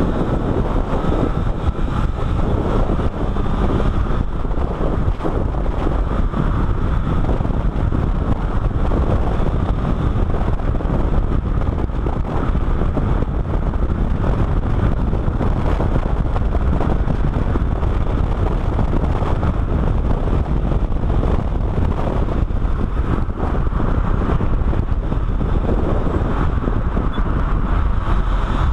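Car being driven at speed, its running noise mixed with heavy wind buffeting on the microphone.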